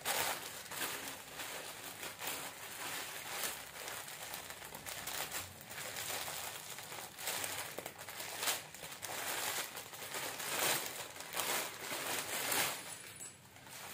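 Clear plastic packaging bag crinkling and rustling in irregular crackles as it is handled and pulled open by hand.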